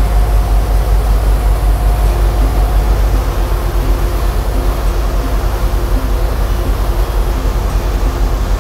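A river bus's engine running under way, a loud steady low rumble with a slight regular throb, mixed with wind and the rush of its wake water.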